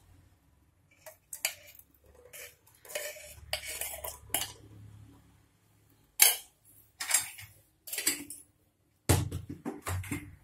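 Metal spoon clinking and scraping against a metal pot and ghee container as ghee is spooned into the heated pot, in irregular short clinks, the sharpest about six seconds in.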